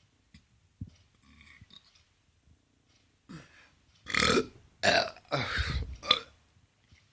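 A man belching loudly in three rough pushes, about four to six seconds in, after a short quieter lead-in.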